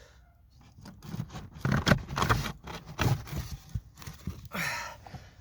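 Irregular plastic knocks and scraping as an old cabin pollen filter is worked out of its housing, starting about a second and a half in.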